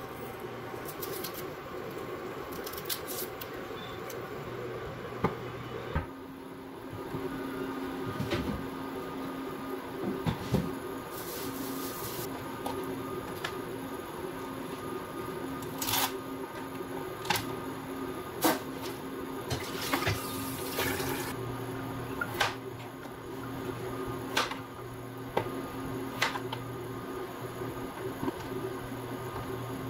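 Kitchen prep sounds: a tap runs briefly twice, then a knife knocks sharply and irregularly on a plastic cutting board as a potato is cut. A steady low hum runs underneath.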